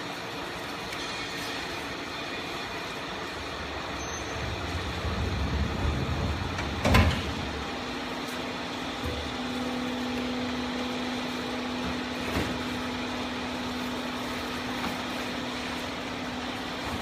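Cardboard baling press running: steady machine noise, one heavy clunk about seven seconds in, then a steady motor hum that starts a second later.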